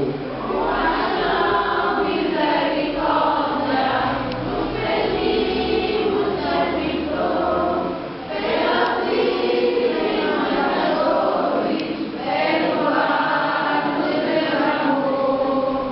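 A group of voices singing a hymn together in long phrases, with short breaks about eight and twelve seconds in.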